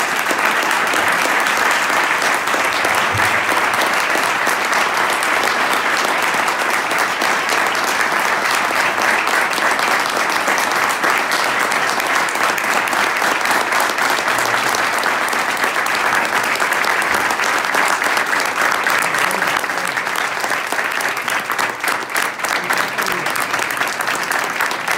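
An audience applauding: dense, sustained clapping from a large crowd that breaks out suddenly and holds steady.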